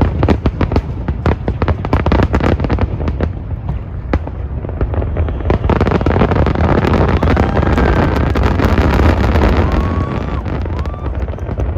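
Aerial fireworks going off in rapid succession: a quick volley of sharp bangs, then about six seconds in a dense, continuous crackle that eases off near the end, over a steady low rumble.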